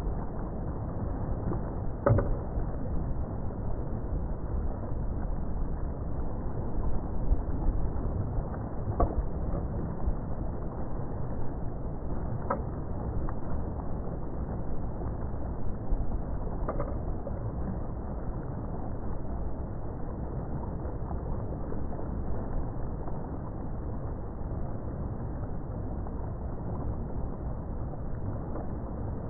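Steady rumbling wash of choppy water and wind, with a few brief knocks, four in all, spread through the first half.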